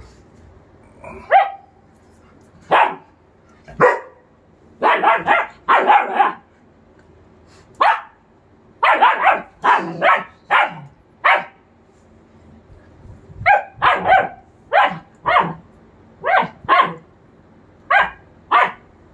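German Shepherd barking repeatedly in short, sharp barks, mostly in quick runs of two to four with pauses between.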